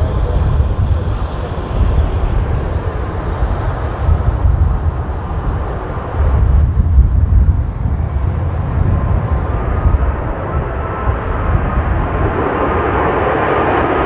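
Boeing 787-9 jet engines on approach, growing louder toward the end with a faint whine in the engine noise. Gusty wind buffets the microphone throughout.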